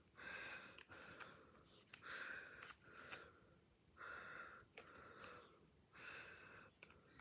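Faint breathing close to the microphone: a hissy breath about every two seconds, each followed by a softer one.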